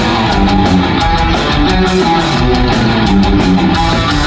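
Live punk rock music: an instrumental passage between sung lines, with distorted electric guitars and drums at a steady loud level.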